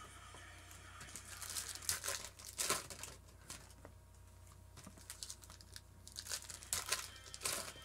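Foil trading-card pack wrappers being torn open and crinkled by hand, in crackly bursts about two seconds in and again near the end.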